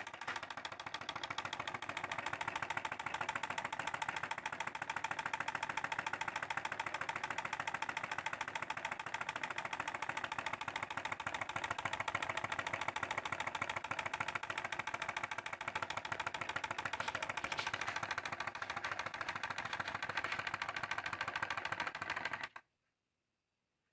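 Homemade tin-can gamma-type Stirling engine running, its moving parts making a fast, even clatter of closely spaced ticks. The sound cuts off suddenly near the end.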